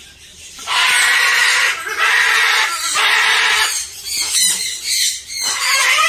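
Moluccan (salmon-crested) cockatoo screaming: loud, harsh screeches starting about a second in, three long ones followed by several shorter ones.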